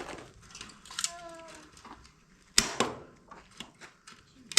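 Chicken wire being stapled to a wooden frame: a few separate sharp staple snaps, the loudest about two and a half seconds in.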